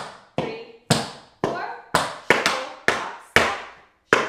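Tap shoes' metal taps striking a wooden tap board: an even run of sharp clicks, about two a second with a few quick doubles, each ringing briefly.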